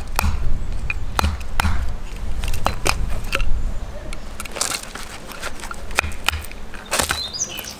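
A piece of firewood, used in place of a hammer, knocks a pin out of a Snow Peak peg hammer's copper head: a run of sharp, uneven wooden knocks with dull thuds, about two a second at first, then fewer and softer.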